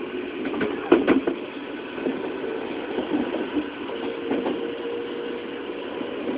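Running sound of a JR 211 series electric train's motor car, heard from inside the car: a steady drone of traction motors and wheels on rail from this resistance-controlled unit. A quick cluster of clacks comes about a second in, like wheels crossing rail joints.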